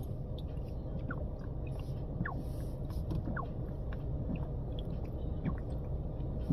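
A person taking a long swig of soda from a glass bottle: faint gulps and short glugs come every second or so, over a steady low rumble.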